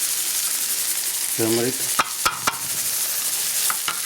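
A masala of onions, green chilies and ginger-garlic paste frying in oil with a steady sizzle while it is stirred. A spoon knocks against the pan a few times.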